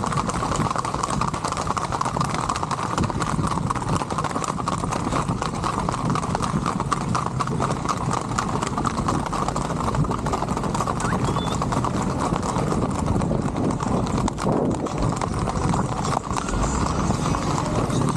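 Hooves of a group of ridden horses clip-clopping fast and steadily on an asphalt road, a dense rapid clatter of overlapping hoofbeats.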